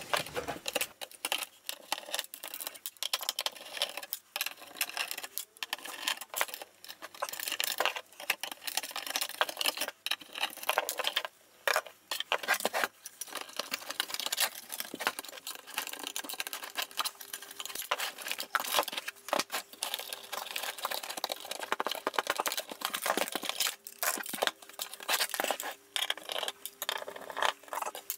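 Metal parts and small screws clicking, clinking and rattling, densely and unevenly, as a metal avionics GPS unit's chassis is taken apart by hand.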